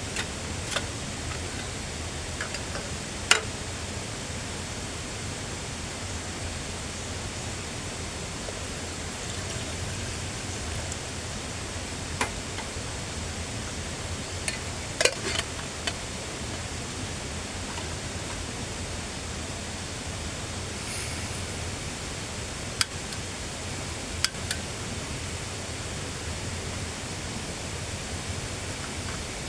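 Steady rushing of flowing stream water, with a few sharp clicks or taps scattered through it, the loudest about three seconds in.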